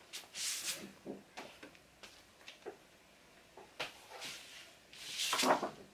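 Paper and card rustling in several short swishes, with a few light taps: folded posters and paper inner sleeves being slid out of a gatefold record sleeve.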